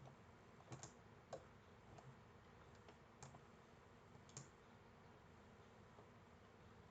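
Faint computer mouse clicks, a handful of single clicks scattered through the first four and a half seconds, then near silence.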